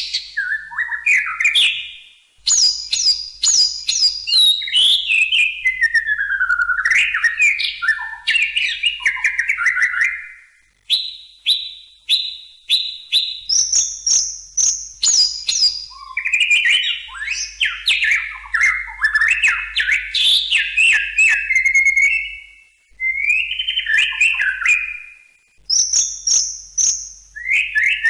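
White-rumped shama (murai batu) singing: loud, varied phrases of quick repeated notes, trills and sliding whistles, broken by a few short pauses.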